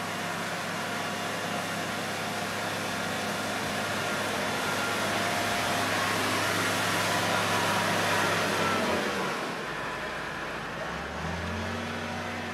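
Tractor engine running under load while a rear-mounted rotary tiller churns a flooded field, with a steady hiss of churned water and mud over the engine hum. It grows louder toward the middle and drops back about three-quarters of the way through.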